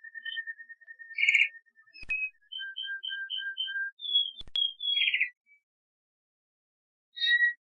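Domestic canary (Serinus canaria) singing: a fast trill of repeated notes, then a run of short notes alternating high and low, a few falling whistles and harsh buzzy notes. After a pause of over a second comes one more short call near the end.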